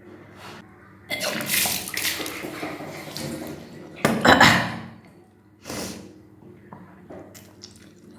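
A person deliberately bringing up drunk water in several gushes that splash down: kunjal kriya, the yogic practice of vomiting back water to cleanse the stomach. A long gush begins about a second in, the loudest comes about four seconds in, and a shorter one follows near six seconds.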